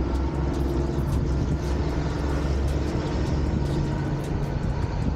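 A vehicle engine running steadily, a low hum that holds about the same pitch throughout.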